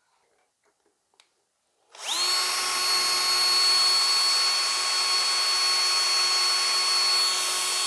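A small high-speed rotary tool with a diamond bit starts about two seconds in, spins up within a fraction of a second to a steady high whine, and runs on, drilling a hole into a piece of quartzite.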